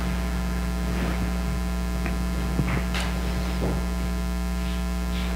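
Steady electrical mains hum in the sound system, with a few faint brief noises in the middle.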